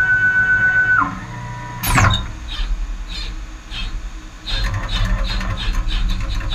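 Flying probe tester at work: a steady motor whine as the circuit board is conveyed in winds down about a second in, followed by a quick falling swish. Then the probe heads move and tap down on the board in rhythmic clicks, about three a second, over a low hum.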